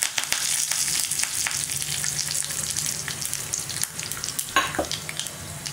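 Hot oil sizzling in a pan as a tempering of mustard seeds, chana dal, curry leaves and green chillies fries, with frequent small crackles and one louder pop about four and a half seconds in.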